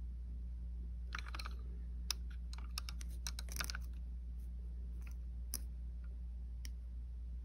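Scattered light clicks and taps of fingers handling a small plastic toy car, several in quick runs early on and a few single ones later, over a steady low hum.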